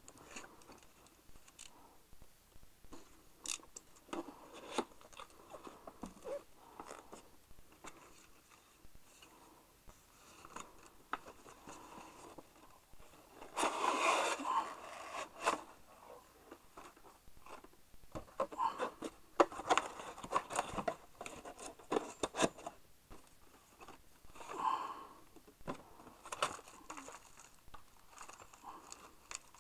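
Cardboard product box and its packaging handled and opened by hand: scraping, rustling and crunching of cardboard with scattered clicks and knocks. The loudest crunching stretch comes about fourteen seconds in, and a busier run of knocks and rustles follows a few seconds later.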